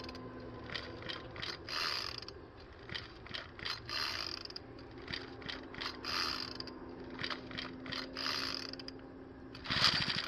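Four-stroke brush cutter being pull-started: the recoil starter cord rasps out about every two seconds, with ratcheting clicks between pulls, and the engine does not catch. The loudest pull comes near the end.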